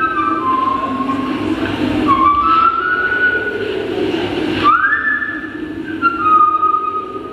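Whistled melody of long held notes with slides between them, the opening of a Western-themed music track played over loudspeakers.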